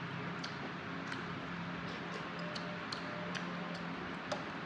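Close-miked chewing of boiled pig cheek meat: soft, wet mouth clicks about twice a second over a low steady hum.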